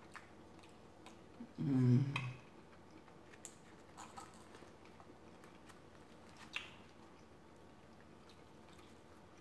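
A short hummed 'mm' from the eater about two seconds in, the loudest sound, followed by a few soft clicks as a small plastic sauce cup is handled, with light chewing between.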